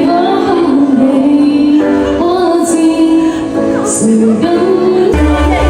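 A woman singing a song over a backing music track, karaoke-style; the bass of the accompaniment drops out and comes back in near the end.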